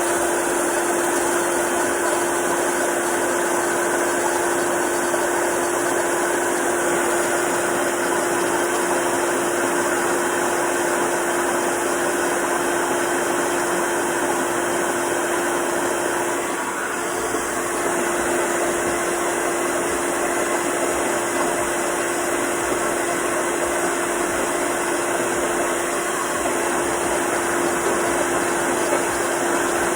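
Handheld hair dryer blowing steadily with a constant hum, drying the sprayed-on hold spray so the wig's lace sets flat. The airflow dips briefly about halfway through.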